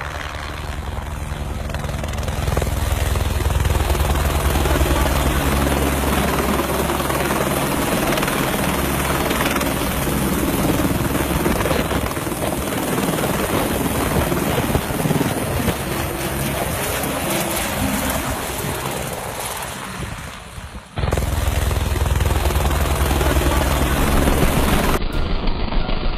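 Helicopter flying close overhead with a sling load, its rotor beating fast over the turbine noise and getting louder as it comes in. Near the end the sound drops out for a moment, then comes back.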